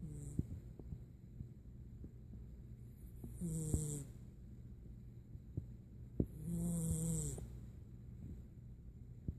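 Domestic cat snoring in its sleep: two snores about three seconds apart, each under a second long, a low pitched rattle with a hissing edge. A few sharp clicks stand out between them.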